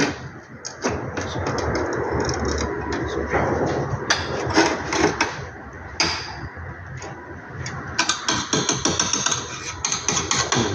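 Stick arc welding: the arc crackles and sputters, holding for a couple of seconds and then breaking into short bursts of spitting as it keeps catching and dying. This stuttering arc goes with a poor earth-clamp connection, which the welder names as the problem.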